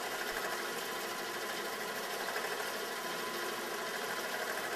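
Small steam engine running steadily under load, driving a generator that powers a bank of lights, with an even, fast mechanical running sound.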